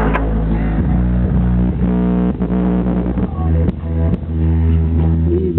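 Bass-heavy music played loud through a car audio system with a single 12-inch Alpine Type X subwoofer, deep bass notes shifting in pitch every second or so.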